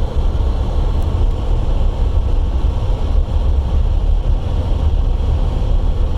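Waterfall rushing steadily and loudly, with a deep low rumble under the spray.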